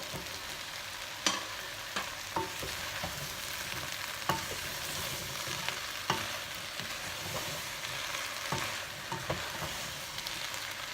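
Chopped vegetables sizzling in hot olive oil in a stock pot, a steady hiss, while they are stirred; a spoon knocks against the pot every second or two.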